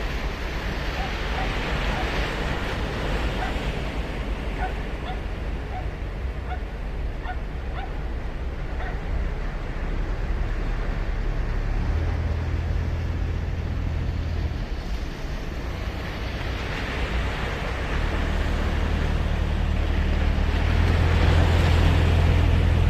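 Sea surf washing onto a sandy beach, swelling as waves break about two seconds in and again in the last several seconds. A low rumble grows louder through the second half.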